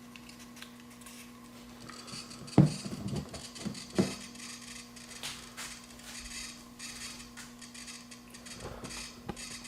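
Rook EMF meter's sound alert going off, a high buzzy pulsing sound that starts about two seconds in and keeps going, set off by the field of a plugged-in radio nearby. A couple of handling knocks come about 2.5 and 4 seconds in.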